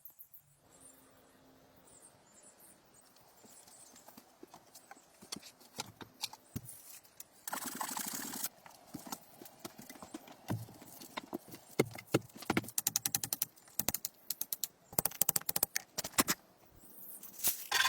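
Irregular knocks and clicks, sparse at first and coming thick and fast later on, with a short scraping rasp about eight seconds in.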